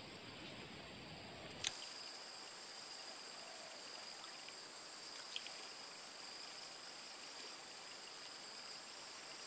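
Steady high-pitched chorus of insects trilling in swamp vegetation, with one faint click about two seconds in.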